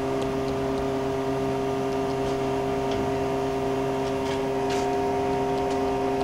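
Miyano BND34T5 CNC turning center under power, running with a steady hum of several constant tones. A few faint clicks and a short hiss about four to five seconds in come as its parts catcher is cycled.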